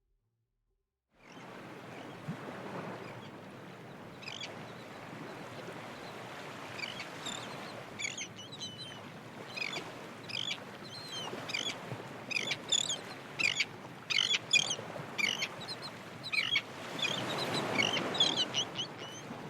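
Birds chirping and calling over a steady rushing background noise: many short, quick calls, coming thick and fast through the middle and latter part. It starts about a second in.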